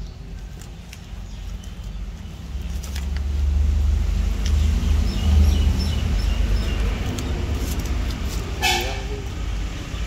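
Low steady rumble that grows louder about two and a half seconds in, with a brief horn toot near the end.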